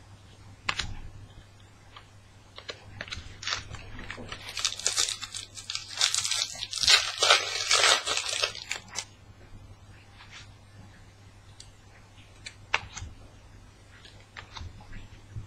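A Panini Adrenalyn XL card pack's wrapper being torn open and crinkled: a dense rustling for about four seconds in the middle, with scattered light clicks and taps of the cards being handled before and after.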